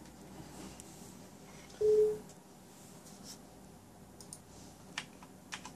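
A short electronic beep, one steady low tone lasting under half a second, as the Corsair K95 RGB keyboard is plugged into the computer. A few sharp clicks of mechanical keyswitches follow near the end.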